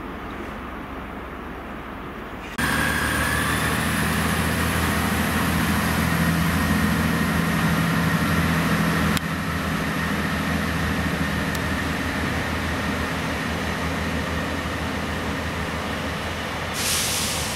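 Class 158 diesel multiple unit's underfloor diesel engines running under power as the train pulls away from the platform, a steady drone with a thin high whine over it, starting abruptly about two and a half seconds in after a quieter stretch. A short hiss comes near the end.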